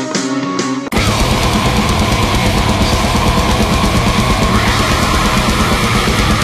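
Music: a short passage of separate picked notes cuts abruptly, about a second in, to loud, dense heavy metal with distorted guitar and drums.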